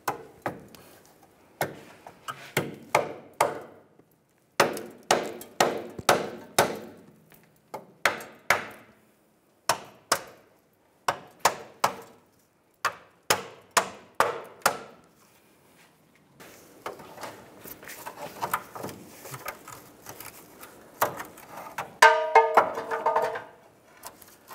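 Ball-peen hammer striking the rusted steel spare tire hoist assembly under the vehicle to tap it loose: groups of several quick, sharp metallic blows with short pauses between. In the later part the blows give way to rusty metal scraping and rattling as the assembly is worked, with a brief squeal near the end.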